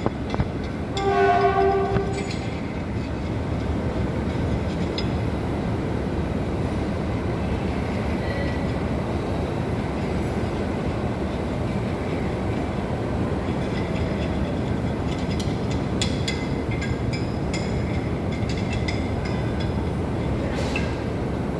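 Diesel locomotive horn, a Sri Lanka Railways class M4, sounding one short blast of about a second, followed by the locomotive's steady running rumble.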